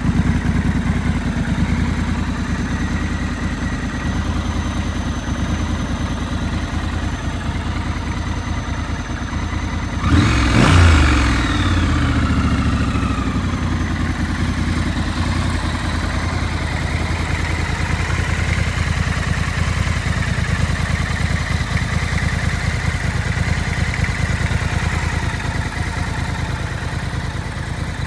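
2019 Triumph Scrambler 1200 XE's 1200 cc parallel-twin engine idling steadily. About ten seconds in there is one quick rev that rises sharply and falls back to idle over a couple of seconds.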